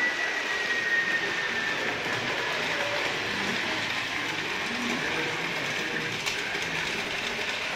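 Model train running on a model railway layout: a steady rolling hiss of the wheels on the track, with a thin whine that slowly falls in pitch and fades out about two seconds in.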